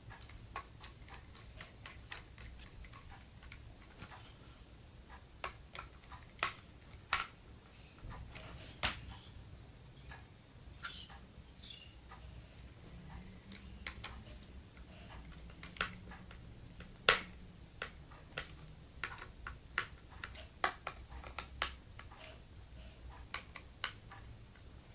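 Scattered, irregular light clicks and taps from a screwdriver turning small metal mounting screws, tightening a GPU water block and its backplate onto a graphics card.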